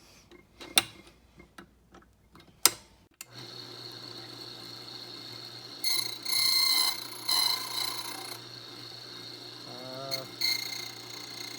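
A few sharp clicks, then a key-cutting machine's motor starts about three seconds in and runs with a steady hum and high whine. Its cutter grinds into a brass key blank for a couple of seconds around the middle and again briefly near the end, cutting the code depths into the key.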